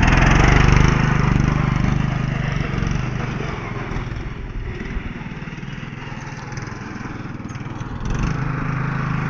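Riding lawn mower's small engine running steadily as the mower is driven. It grows fainter through the middle and comes back louder about eight seconds in.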